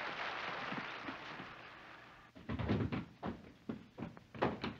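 Applause dying away over the first two seconds, then hurried running footsteps thumping on a floor, about three a second.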